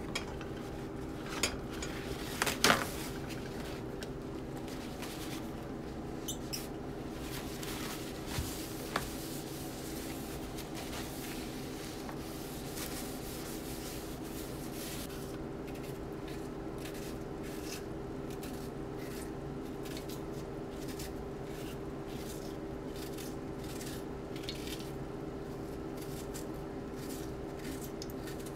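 Skillet of ground venison cooking on the stove with faint crackling over a steady hum. A few sharp clinks of a utensil on the cookware come early, the loudest about two and a half seconds in, with a couple more about eight and nine seconds in.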